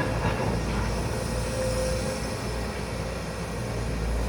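A steady low rumble with a faint steady hum above it.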